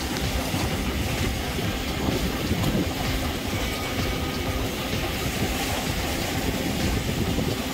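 Sea surf surging and breaking through a rocky gully, mixed with a steady, heavy rumble of wind on the microphone.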